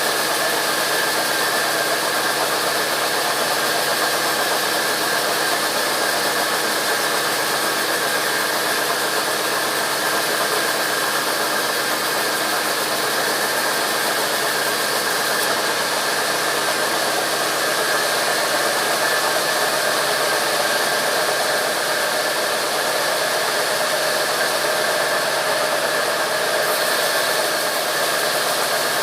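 Sawmill machinery running steadily, a constant mechanical noise with a high whine held throughout.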